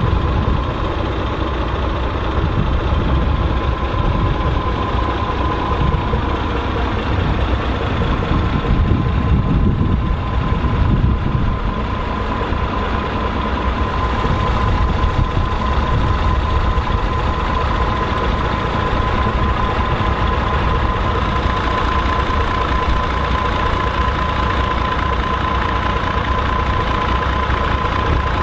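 Volvo BM 814 tractor's diesel engine running steadily under load while pulling a six-furrow plough, with a steady high whine over the engine note that grows a little stronger about halfway through.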